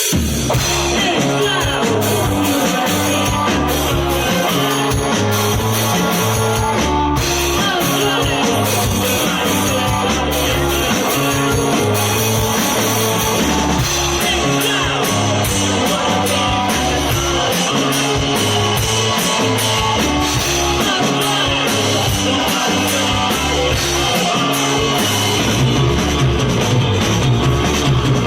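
Live rock band playing an instrumental passage, with electric guitar, a stepping bass line and drum kit with fast cymbal strokes.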